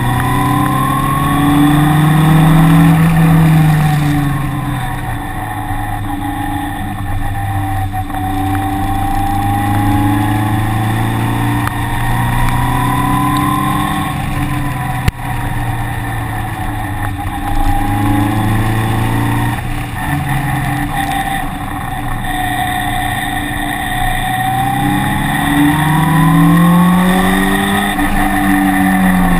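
Engine heard on board at speed, its pitch climbing under acceleration and falling back when it eases off, several times over.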